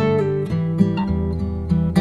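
Background music led by strummed acoustic guitar, chords changing every second or so.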